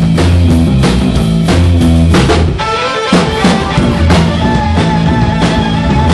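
Live rock band playing loud, with electric bass guitar and drum kit to the fore. The bass line drops out briefly about two and a half seconds in while the drums keep time.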